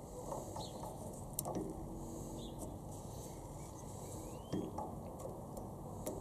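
Faint rustle of gloved hands working a piston ring over a piston by hand, with a few sharp light clicks spread through it.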